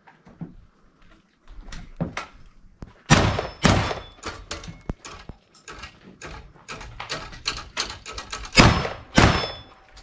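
A rapid string of gunshots at steel targets, with the ring of hits on the steel plates. Four shots are louder than the rest, in two pairs about half a second apart, around three seconds in and again near the end, with a quick run of lighter shots and clangs between them.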